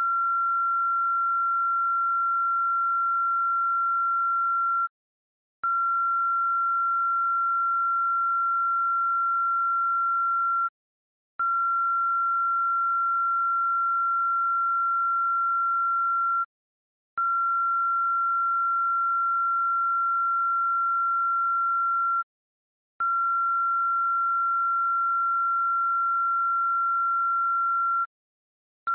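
A steady, high-pitched electronic tone, held for about five seconds and then cut off by a short silence, repeating evenly about every six seconds: five times in a row.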